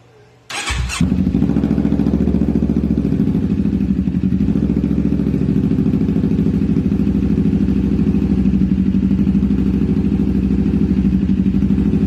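CFMoto NK400's parallel-twin engine starting about half a second in with a short crank, then idling steadily with a rapid, even pulse through a loud aftermarket slip-on muffler.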